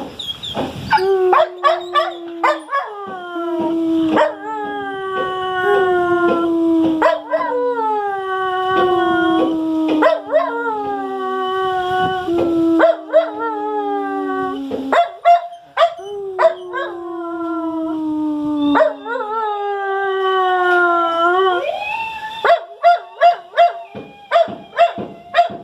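Dog howling in long drawn-out calls, one after another, each sliding slowly down in pitch. Over the last few seconds the howls give way to a quick run of short, sharp sounds.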